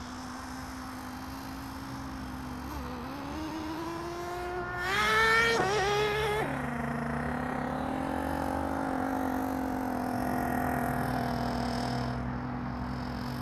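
Radio-controlled Thunder Tiger ST1 stadium truck's motor running at a steady high pitch, then revving up over a few seconds, loudest about five to six seconds in, and dropping suddenly back to its steady note.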